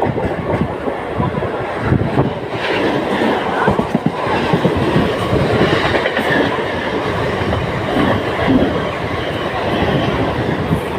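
Mumbai suburban EMU local train running at speed, heard from inside a non-AC coach: a loud, steady rumble and rattle, with the wheels clattering over the rail joints.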